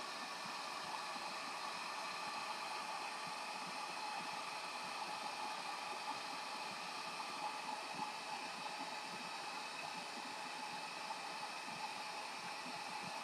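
A steady, even hiss with a few faint steady tones running through it, like a fan or other small machine running without change.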